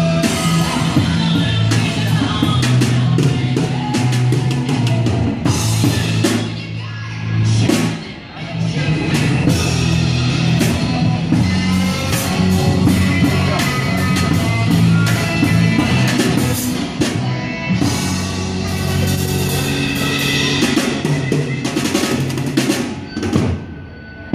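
Busker playing a full drum kit: fast drum and cymbal hits over steady low bass notes. The playing drops off just before the end.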